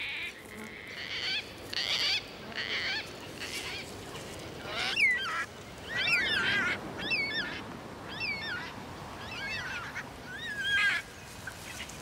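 Cockatoos calling: a series of short squawks, then from about five seconds in, wavering calls repeated roughly once a second.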